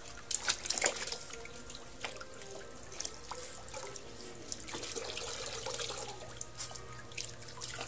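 Water from a garden hose pouring into a basin and over a wet Shih Tzu puppy as it is rinsed, with splashing from the dog and hands in the water; a cluster of sharper splashes comes about a second in.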